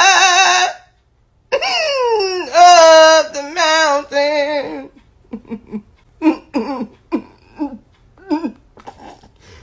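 A person's voice singing long held notes that slide down in pitch, then, about halfway through, breaking into a string of short bursts of giggling laughter.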